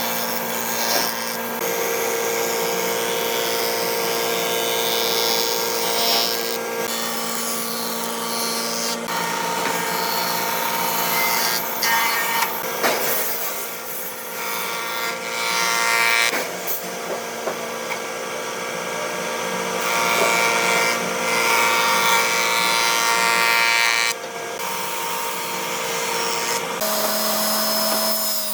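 Electric power tools running steadily as they work wood, with a steady motor hum under the hiss of the tool on the wood. The sound changes abruptly several times as one stretch of work follows another.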